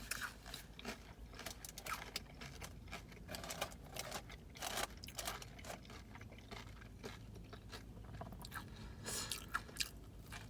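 A person chewing crunchy kettle-cooked potato chips close to the microphone: a run of irregular crunches.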